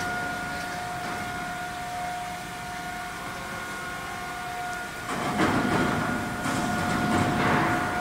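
Steady high whine from a medium-frequency induction melting furnace under power. From about five seconds in, a louder rumbling, clattering noise joins it.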